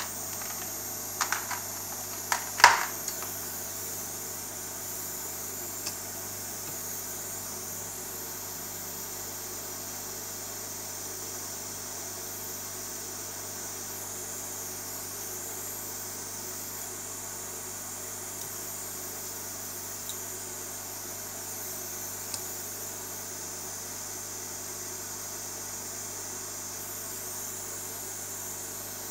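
A few sharp clicks and one louder knock in the first three seconds as the soldering iron and solder are taken up on the bench, then a steady low hiss and hum while soldering goes on with no other distinct sound.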